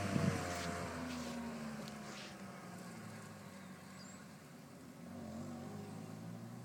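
Car engine running as the car drives away, its sound fading steadily, then growing a little louder again about five seconds in.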